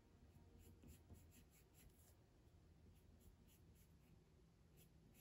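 Faint scratching of a pencil on paper: a quick run of short strokes in the first two seconds and a few more near the end, lightly colouring in a small area.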